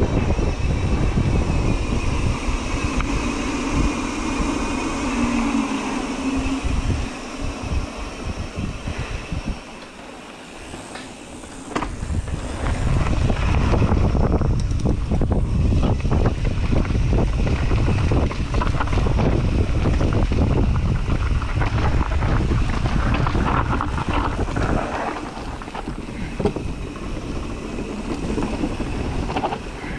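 Wind rushing over the microphone of a mountain bike descending a dirt flow trail, with the bike clattering and rattling over bumps. The rush dies down about seven seconds in and picks up again about twelve seconds in.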